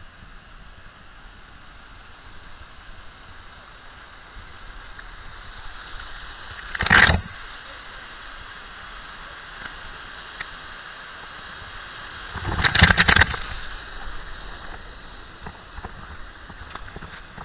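Waterfall rushing steadily, broken twice by loud splashing bursts of falling water striking the camera as it passes through the curtain of the falls: a short one about seven seconds in and a longer one near thirteen seconds.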